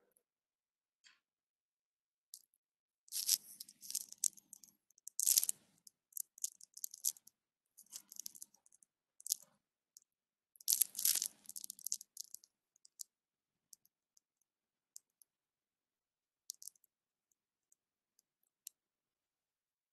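Intermittent rustling and clicking handling noises close to the microphone, in short crackly bursts of a second or less, clustered in the first half with silent gaps between.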